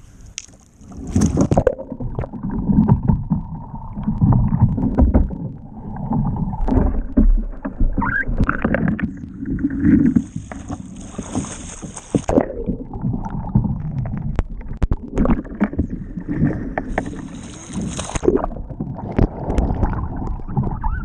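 Water sloshing, gurgling and splashing around a kayak as it tips over onto its side and goes under, the water washing over the deck right by the microphone. There is a steady low churning with many sharp splashes, and two stretches of hiss, about ten seconds in and again near the end.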